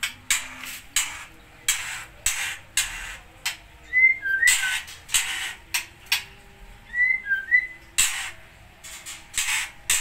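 About a dozen short rustling, hissing noise bursts from a dry-grass bird's nest being handled and parted. About 4 and 7 seconds in come two brief runs of three high, chirp-like whistles.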